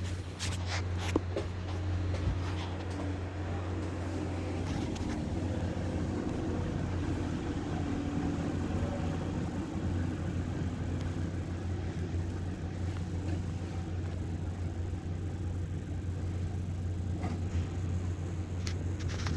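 Diesel engine of a Mercedes-Benz concrete pump truck running steadily with a constant low hum. A few clicks and knocks come in the first couple of seconds.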